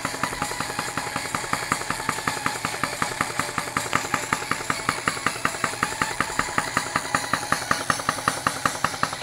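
Homemade tin-can Stirling engine running on candle heat, with a steady, even clicking of about six knocks a second.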